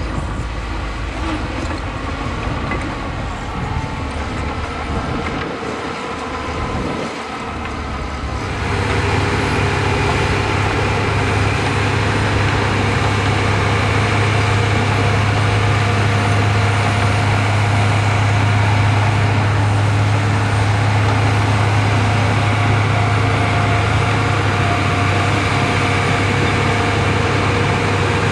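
Heavy diesel engines of earthmoving machines running. About eight seconds in, the sound switches abruptly to a louder, steady low engine drone.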